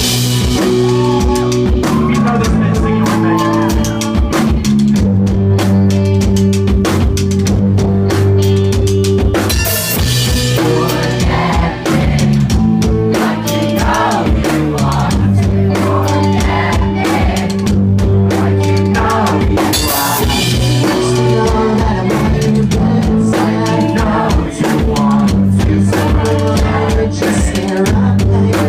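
Live rock band playing loud, with a driving drum kit, sustained guitar and bass chords, and singing.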